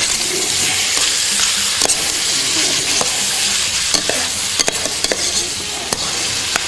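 Pork and liver sizzling as they fry in a large stainless steel pot, stirred with a metal slotted spoon that clicks and scrapes against the pot several times.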